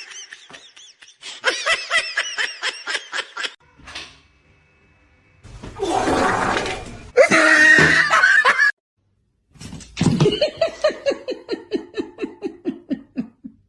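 A person laughing in runs of rapid, pulsing bursts, twice, the second run sliding down in pitch. A loud noisy stretch comes between the two runs.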